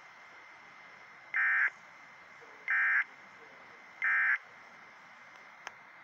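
Emergency Alert System end-of-message data bursts sent three times from a weather radio's speaker: three short, buzzy digital chirps about a second and a half apart. They close the required weekly test. Steady static hiss with a faint high tone sits underneath, and a small click comes near the end.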